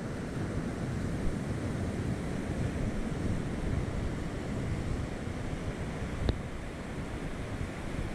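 Ocean surf washing on the beach, with wind buffeting the microphone. A single brief click about six seconds in.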